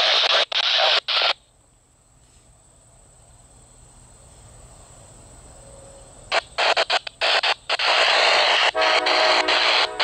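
Loud static hiss from a railroad scanner radio, chopping in and out. It drops out about a second and a half in and comes back about six seconds in. Near the end a locomotive air horn sounds briefly under the static.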